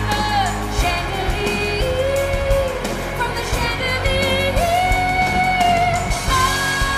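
A singer holding long, wavering notes over a pop band's backing.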